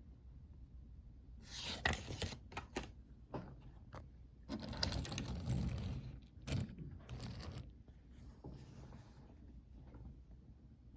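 Hands handling a toy train and its packaging: several short bouts of rustling and scraping with light clicks, the loudest about two seconds in and again about five seconds in.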